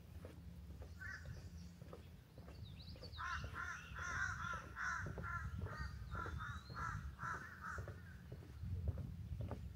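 A crow cawing: one call about a second in, then a quick run of about a dozen caws, roughly two to three a second, from about three to eight seconds in.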